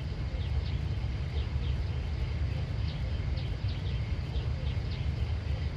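Outdoor ambience: short, high, falling chirps repeating about two to three times a second over a steady low rumble.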